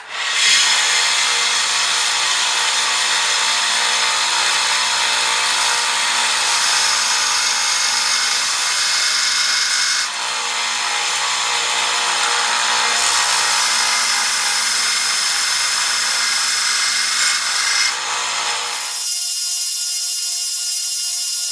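Electric power tool running continuously, working the material. About 19 seconds in the sound thins out to a higher steady whine.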